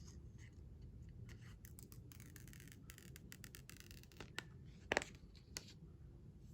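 Handling of a smartphone box and packaging during unboxing: a couple of seconds of scratchy rubbing, then three light taps or clicks, the middle one the loudest.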